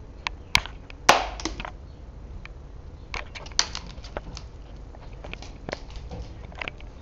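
A West Highland white terrier playing with a bone: a scattering of sharp clicks and knocks, the loudest and longest about a second in.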